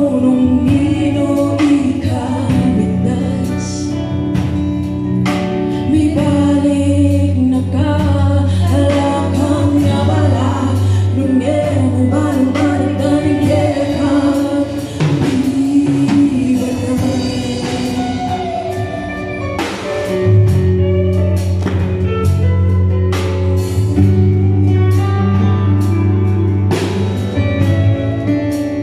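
Live band playing a song: two women singing over drum kit, electric bass, electric guitar, acoustic guitar and keyboard, with a steady drum beat throughout.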